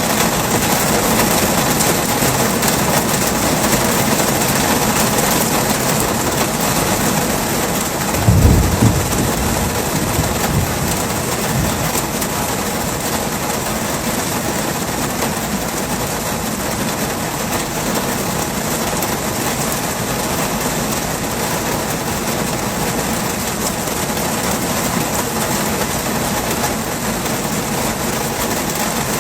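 Heavy rain falling in a steady hiss, with a short deep rumble of thunder about eight seconds in.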